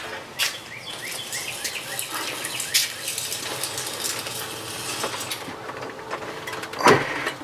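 Outdoor background with small birds chirping, and scattered clicks and knocks from handling, with a louder knock about seven seconds in.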